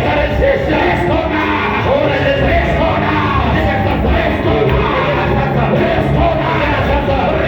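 Live church music with steady sustained bass notes and many voices of a congregation raised over it, continuous throughout.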